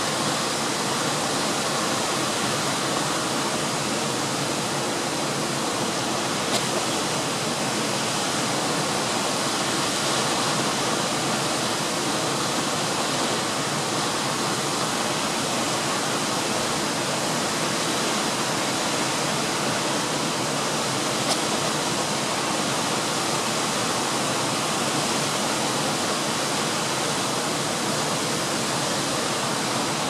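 Siklawa waterfall in the Tatra mountains, water falling and cascading over rock in a steady, unbroken rush.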